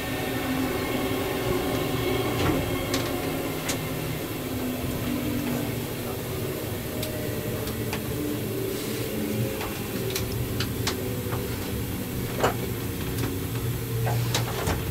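Steady interior running noise of a passenger coach on a moving train: a low rumble and hum, with scattered sharp clicks and rattles.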